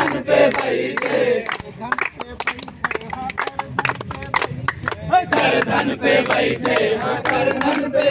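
A group of men singing a Holi folk song together to steady hand clapping. About two seconds in the voices thin out, leaving mostly the clapping, and the singing swells again about five seconds in.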